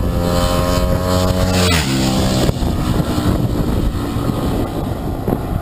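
Sports motorcycle passing at speed close by: its engine note climbs slightly on the approach, drops sharply in pitch as it goes past about two seconds in, then fades away, with wind on the microphone.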